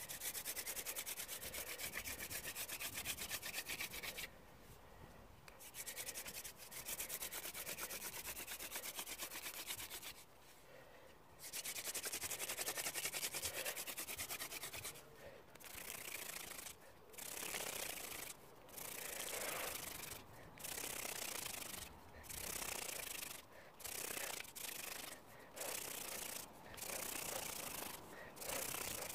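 Elder hand-drill spindle spun between the palms, its tip grinding into a clematis baseboard with a dry rasping friction. Long runs of spinning are broken by short pauses as the hands go back up the spindle. In the second half the runs turn into shorter bursts of about a second, as the drill works the hole up toward an ember.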